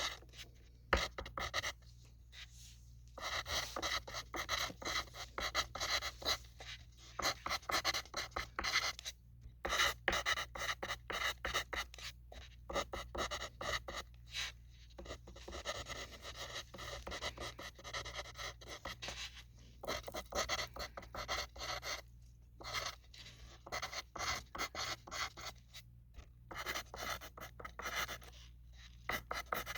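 Graphite pencil writing on a sheet of paper: quick runs of short scratchy strokes, broken by brief pauses between words.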